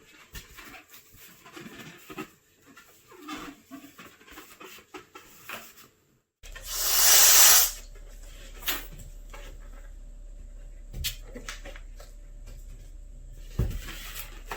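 Rubber balloons squeaking and rubbing in short, scattered squeals. After a brief gap comes a loud rush of air lasting about a second, followed by a few light taps over a low hum.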